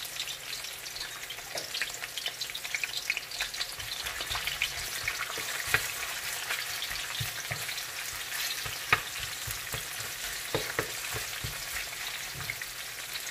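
Sliced red onion, garlic and ginger sizzling in cooking oil in a metal wok, stirred with a wooden spatula that scrapes and taps against the pan over a steady hiss.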